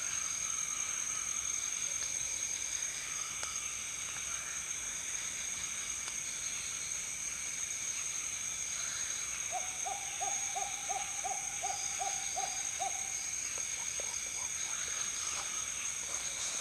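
Steady high-pitched chorus of night insects. A little past the middle, an animal gives a quick series of about ten short hooting notes, about three a second, lasting some three seconds.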